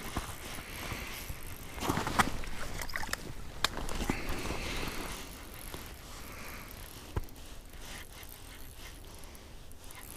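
Spinning reel being cranked to wind in line, its gears whirring and clicking; louder for a few seconds near the start, then softer, with a sharp click about seven seconds in.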